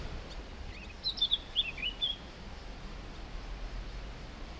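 A small bird chirping a short, quick phrase of high notes about a second in, over a low steady background rumble.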